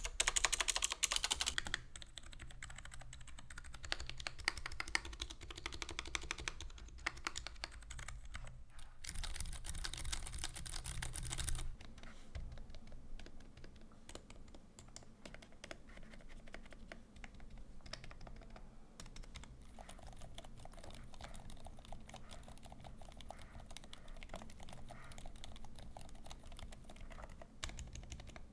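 Continuous fast typing on a Hansung TFG ART tenkeyless mechanical keyboard with lubed Zealios Zilent 67g silent tactile switches, GMK keycaps and sorbothane dampening. The keystrokes are louder for the first couple of seconds and again about nine to eleven seconds in, then softer for the rest.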